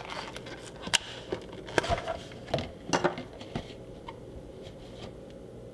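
Light clicks, taps and rustles of fresh oregano sprigs and their packaging being handled on a kitchen work surface, dying away after about three and a half seconds to a faint steady hum.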